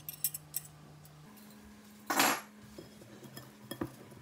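Wire whisk clicking and scraping against a glass mixing bowl as it stirs thick condensed milk into dry pudding mix, with one louder knock about two seconds in.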